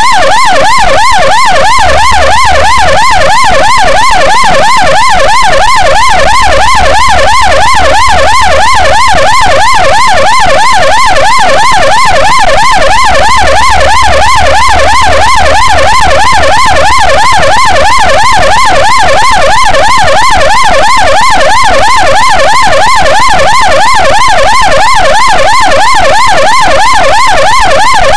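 Ambulance siren in a fast yelp: a very loud, rapid up-and-down sweep repeating several times a second without a break.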